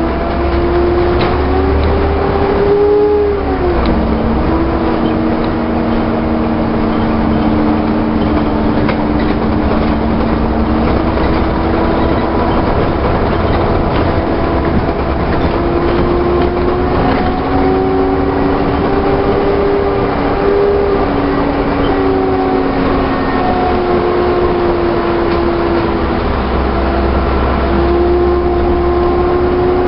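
Alexander-bodied Volvo bus under way, its engine and drivetrain holding a steady tone over a low rumble. The pitch drops about three to four seconds in, then rises and falls gently a few times as the bus changes speed.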